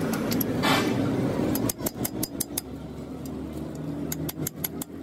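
A vehicle engine runs at first. After about a second and a half come quick runs of sharp metallic clicks from a hand socket wrench being worked on the bolts of a truck's front wheel hub.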